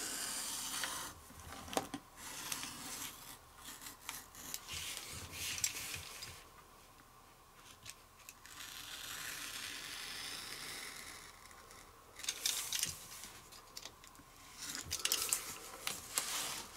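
Craft knife blade drawn through wood-grain contact paper and its backing along the edge of a clear acrylic ruler: a series of scratchy slicing strokes, some a few seconds long, with short pauses and a few light ticks between them.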